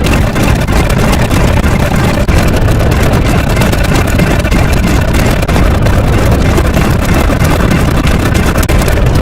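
Loud, steady rumbling noise with most of its weight in the low end and no breaks or distinct events.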